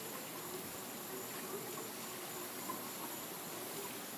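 Insects trilling steadily at a high pitch over a faint, even outdoor hiss.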